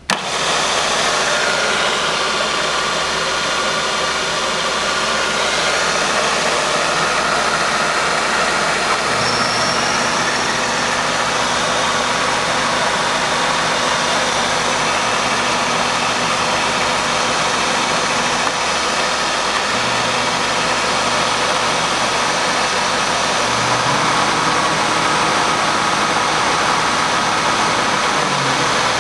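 Hermle UWF800 milling machine's spindle drive switched on, starting suddenly and then running steadily with a whirring mechanical noise. A low hum underneath comes in, drops out and shifts a few times.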